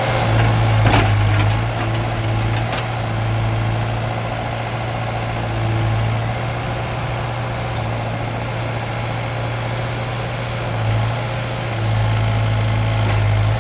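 Backhoe loader's diesel engine running steadily at idle, its low hum swelling slightly about a second in and again near the end.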